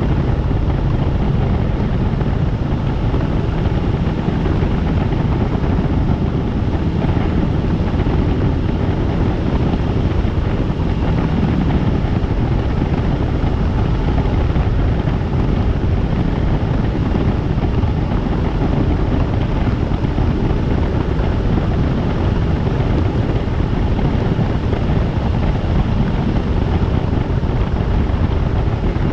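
Helicopter in flight: steady, loud rotor and engine noise with wind over the microphone.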